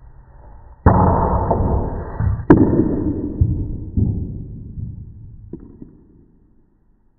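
Sharp crack of a phenolic-tipped break cue striking the cue ball, followed by the ball rumbling across the table. Several knocks off the rails come through the rumble, the loudest about two and a half seconds in, before it fades away.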